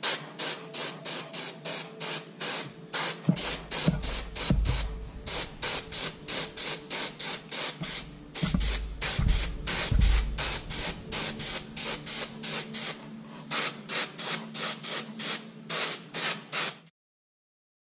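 Gravity-feed airbrush spraying paint in short hissing bursts, about three a second, as the trigger is pressed and released, over a steady low hum. A few dull thumps come between about 3 and 10 seconds in. The sound cuts off suddenly near the end.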